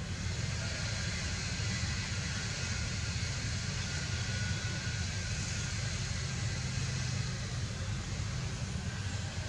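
Steady outdoor background noise: an unbroken low rumble with a faint hiss above it, and no distinct events.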